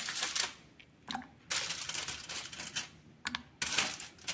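Aluminium-foil chocolate wrapper crinkling and rustling in several short, irregular bursts as squares of chocolate are pulled out of it and added to a pan of milk.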